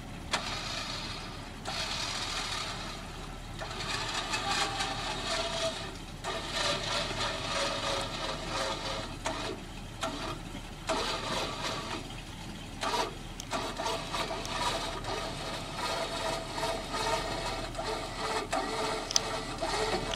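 Tow truck's front winch reeling in its cable under load, hauling a stuck pickup up a rocky slope. It runs in spells that stop and start several times, a steady whine over a grinding hiss.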